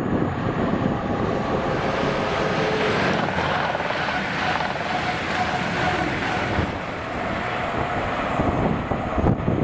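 A diesel train passing close by, a steady rush of wheel and engine noise with faint engine tones, with wind on the microphone.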